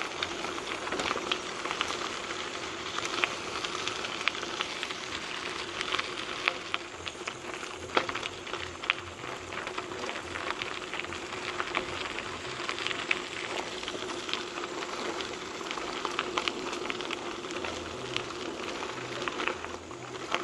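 Trek 4500 mountain bike's tyres rolling over a gravel trail: a steady crackle of loose stones with many sharp clicks scattered through it.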